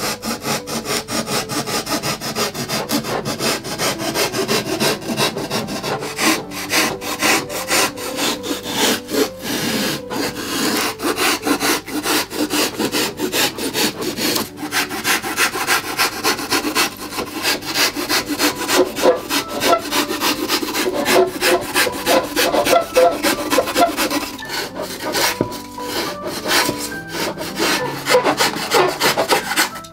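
A knife sawing back and forth through extruded polystyrene (XPS) foam board in rapid, continuous rasping strokes, carving a sloping contour into the scenery base.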